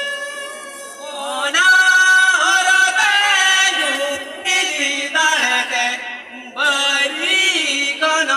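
Voices singing a Santali enej dance song, long drawn-out notes sliding up and down in pitch in phrases that pause briefly about a second in and again near six seconds.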